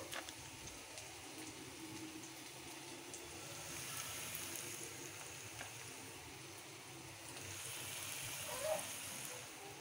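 Onions and green chillies sizzling gently in oil in a steel kadai, a steady soft hiss, with a short squeak near the end.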